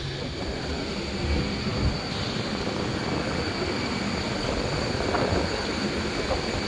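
Steady rumbling noise of a jet airliner, with a thin, constant high-pitched whine over it.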